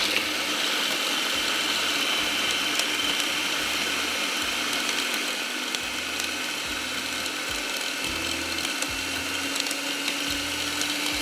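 Electric food processor switching on and running steadily, its motor and blade grinding boiled moong daal with onion, green chilies and spices into a coarse filling.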